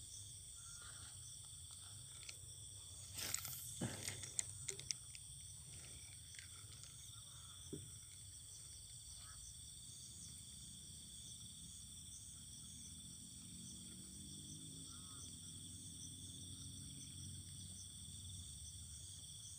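Steady chorus of crickets and other insects, a few high continuous tones that hold level throughout. A cluster of sharp clicks and knocks comes about three to five seconds in.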